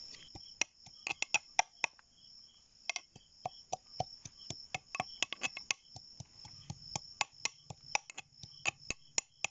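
Hands pressing dry spice masala into slit small brinjals: irregular sharp clicks and crackles, several a second at times. Crickets chirp steadily in the background.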